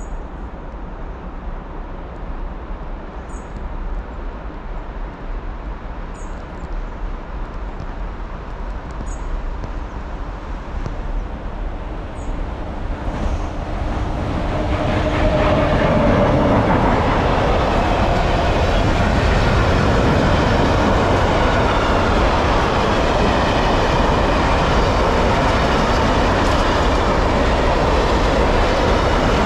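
A train approaching on the line, its rumble building slowly, then passing close by from about halfway through, a loud, steady run of wheels on rails.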